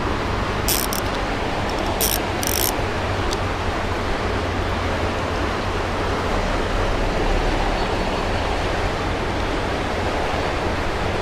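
Creek water rushing steadily in a strong current. A few brief high-pitched bursts cut through it in the first few seconds.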